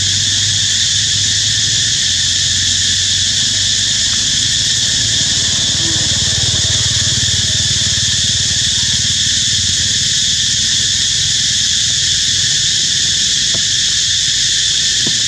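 Steady, unbroken high-pitched drone of an insect chorus, with a low rumble underneath.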